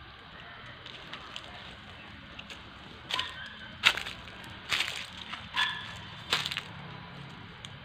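Leaves and stems brushing and crackling against the phone as it is pushed through dense plants: five sharp rustling crackles about a second apart, starting about three seconds in.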